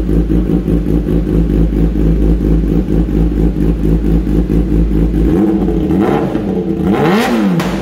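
An engine running steadily. In the last two seconds its pitch rises and falls back, with a short hiss near the end.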